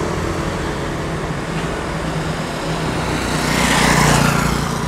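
Street traffic with a motor vehicle passing close by: a steady engine hum and road noise that swell to a peak about four seconds in, then fade.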